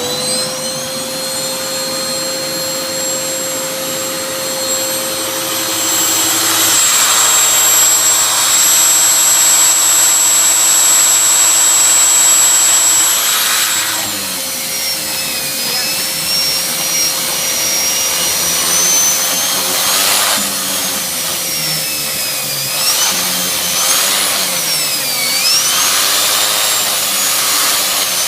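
Hoover Vortex 850-watt vacuum cleaner switched on, its motor spinning up and running with a steady, really loud high whine. About halfway through, the pitch drops and then wavers up and down.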